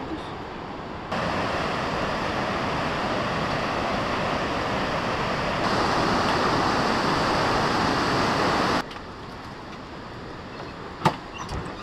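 Fast mountain river rushing over whitewater rapids, a steady noise of water that comes in abruptly about a second in, grows louder midway and drops away suddenly after about eight seconds. A couple of sharp knocks follow near the end.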